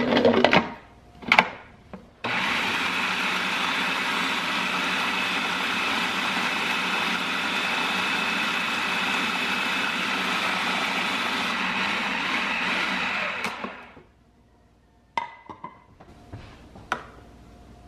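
Food processor motor running steadily on low while oil is drizzled through the feed tube into emulsifying mayonnaise. It starts suddenly about two seconds in and winds down after about eleven seconds, with a few light clicks of plastic parts and a spoon before and after.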